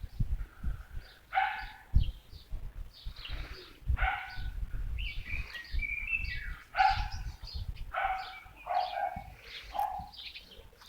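A dog barking over and over, about one bark a second, with birds chirping.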